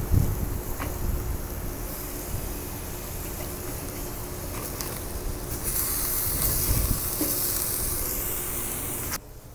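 Pork chops sizzling on the grate of a charcoal kettle grill as they are flipped with metal tongs, with a few light clicks from the tongs. The sizzle grows louder a little past halfway and cuts off suddenly near the end.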